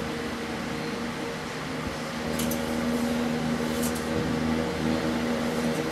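2003 Chevrolet Silverado's engine idling steadily with the hood open, warming up. Two faint brief ticks in the middle.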